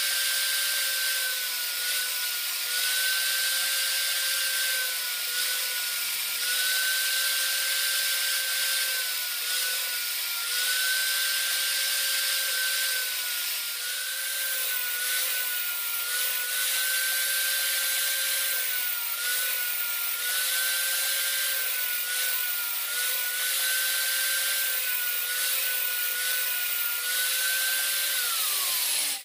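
Angle grinder with a diamond grinding wheel running steadily, sharpening the teeth of a table saw blade. Its whine drops briefly in pitch about every two seconds as each tooth is fed against the wheel. Near the end it is switched off and winds down.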